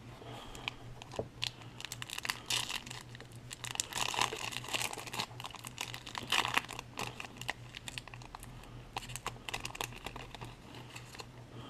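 Baseball card pack wrapper being torn open and crinkled, with many quick clicks and rustles as the cards are handled. The rustling is densest in the middle.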